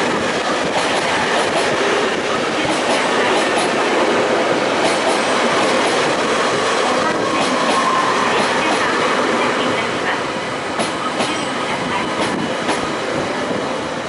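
JR Hokkaido 789 series electric express train slowing into a station as its cars run past close by: a steady rushing of wheels on rail with scattered clicks over rail joints. A faint high squeal comes about halfway through, and the noise eases a little near the end.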